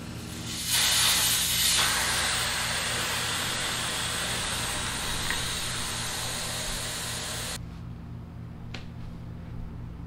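Compressed air hissing out of a motorcycle rear tire through its valve stem as the tire is let down: it starts strongly, eases off slowly over several seconds and then cuts off suddenly.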